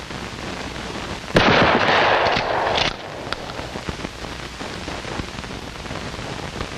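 Shotgun firing a rifled slug: one loud blast about a second and a half in that lasts about a second and a half and cuts off abruptly, over the steady hiss of an old film soundtrack.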